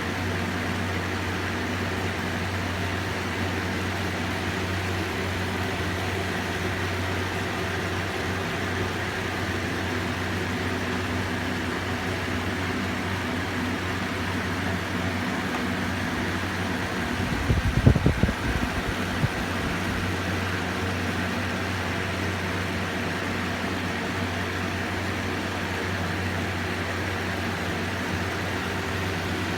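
Chimei electric fan running with a steady droning hum, the abnormal noise the owner recorded as a fault. A brief burst of low thumping rumble about halfway through.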